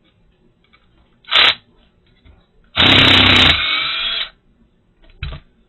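Handheld power drill run in short bursts: a quick blip, then a run of about a second and a half that winds down, then another quick blip near the end.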